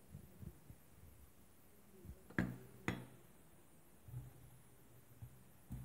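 Hands tossing salad leaves in a stainless steel bowl: faint soft rustling, with two sharp knocks about half a second apart about two and a half seconds in.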